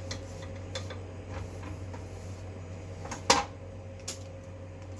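Kitchenware being handled while cooking gets under way: a few light clicks and knocks, and one sharp clack a little over three seconds in, over a steady low hum.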